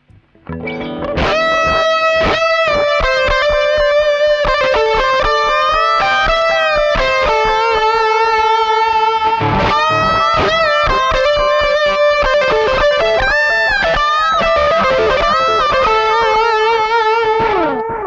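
Electric guitar played through an MXR M169 Carbon Copy analog delay pedal with its modulation on: a melodic run of single notes, each trailed by echoing repeats that waver slightly in pitch. Near the end the playing stops and the repeats die away.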